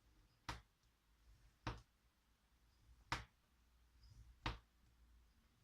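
A scoring tool drawn along a scoreboard groove, pressing a fold line into paper in four short, light strokes about a second and a half apart.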